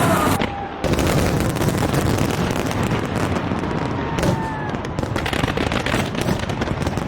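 New Year fireworks going off in a dense, rapid crackle of many overlapping bangs, dipping briefly a little under a second in.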